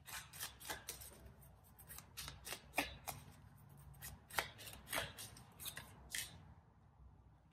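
Tarot cards being handled: a string of faint, irregular crisp clicks and rustles of card stock that stops about six seconds in.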